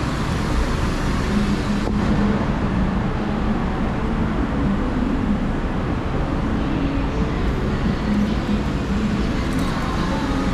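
Street traffic: a steady wash of road noise with the engines of passing motor vehicles rising and fading in it.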